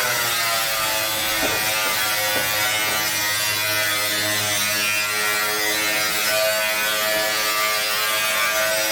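A small electric motor running steadily, its pitch settling downward at the very start.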